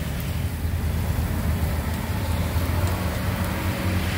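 Steady low rumble with an even hiss over it, and a faint click about three seconds in.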